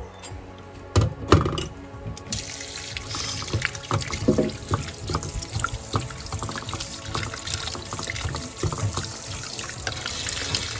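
Kitchen tap running into a bowl of cherry tomatoes in a stainless steel sink, the water splashing as a hand rubs the tomatoes clean. A few knocks come about a second in, and the water starts about two seconds in.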